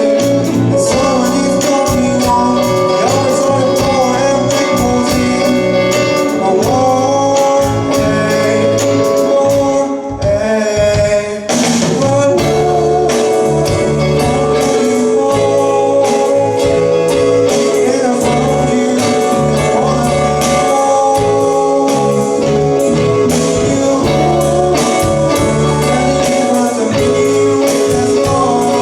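A rock band playing live with a singer, electric guitar to the fore. About ten seconds in the band briefly drops back, then comes back in at full strength with a sharp hit.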